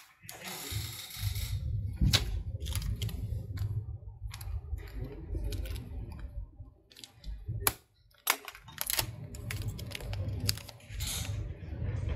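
Scattered small clicks and taps, irregular, over a steady low rumble.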